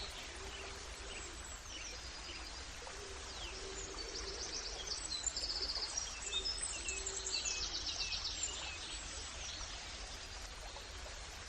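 Songbirds singing and chirping, with rapid trills that are busiest in the middle, over a steady rushing background that sounds like a flowing stream. Several lower-pitched calls repeat underneath.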